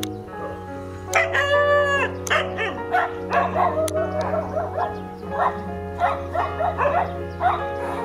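Dogs barking and yelping: a drawn-out yelp about a second in, then a run of short barks, over steady background music.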